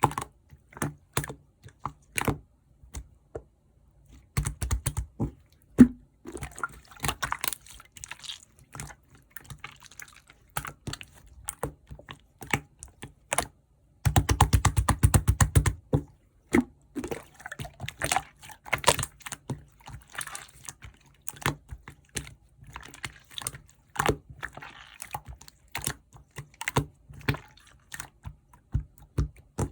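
Hands playing with clear slime, making irregular sticky clicks and pops. There are two runs of rapid crackling, a few seconds in and again about halfway.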